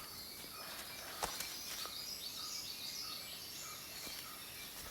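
Faint outdoor ambience. A short call repeats about every half second, a run of high twittering bird chirps comes in the middle, and there is a single click a little over a second in.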